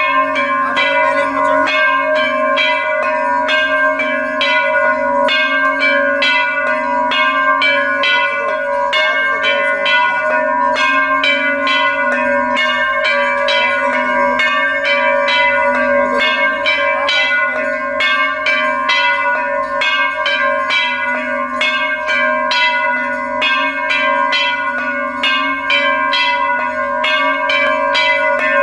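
Temple bells rung continuously with rapid, repeated strikes, their ringing overlapping into a steady, many-toned peal.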